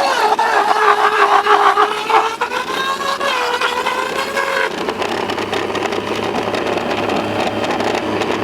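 Homemade 3D-printed styrofoam shredder running, its 12-volt motor spinning the rotor with a small Dyson vacuum drawing the foam through. A loud motor whine wavers down and up in pitch, then about five seconds in gives way to a steadier, rougher running noise with a low hum.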